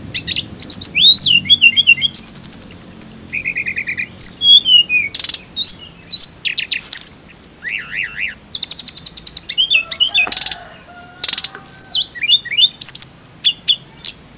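Hill blue flycatcher (tledekan gunung) singing a long, varied song of fast trills, rapidly repeated notes and sliding high whistles, phrase after phrase with short breaks.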